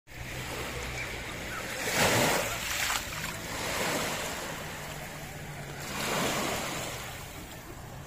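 Small sea waves breaking at the shoreline and washing up over sand and fine pebbles, with a loud wash about two seconds in and a second, softer one about six seconds in.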